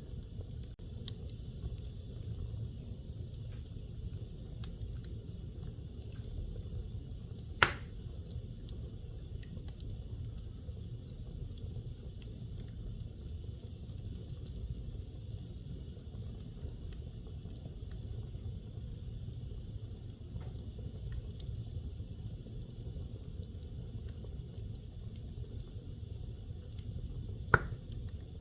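Wood fire burning in a fireplace: a steady low rumble with soft crackling throughout, and two loud sharp pops, one about eight seconds in and one near the end.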